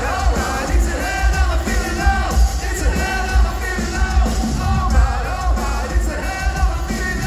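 Live pop-rock band playing with a male lead singer over a strong bass and drum beat, heard from the audience in an arena.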